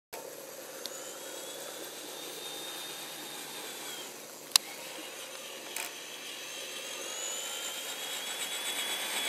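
Remote-control monster truck's motor whining as it drives over grass: steady at first, dropping away about four seconds in, then rising in pitch and getting louder as the truck speeds up near the end. A single sharp click about halfway through.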